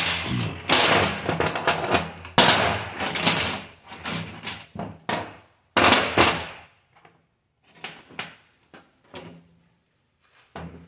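Rusty steel timing chain rattling and clinking against the steel bench and gear sprockets as it is handled and wrapped around them. Dense metallic rattling for the first six or seven seconds, then a few light clicks.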